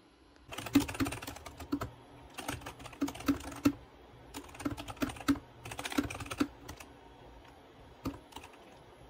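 Typing on a mechanical computer keyboard: rapid runs of key clicks in bursts for about six seconds, then a few single keystrokes near the end.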